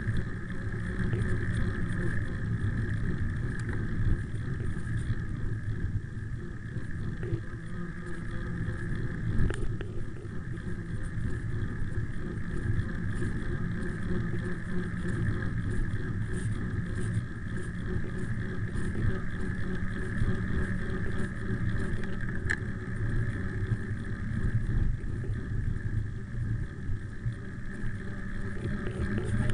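Steady rumble of wind buffeting a handlebar-mounted camera's microphone and bicycle tyres rolling fast on a paved road on a downhill run, with a couple of brief knocks from bumps in the road.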